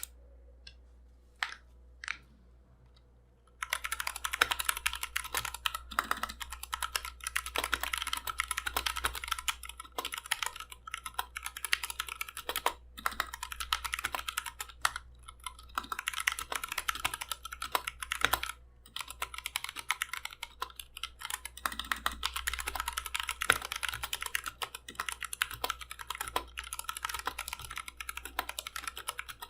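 Typing on a mechanical keyboard with Akko CS Lavender Purple switches, Anne Pro 2 PCB, plate and stabilizers in a KBD67 Lite case with sound dampening; the keystrokes are clacky. A few separate key presses, then continuous fast typing from about three and a half seconds in, broken by two short pauses.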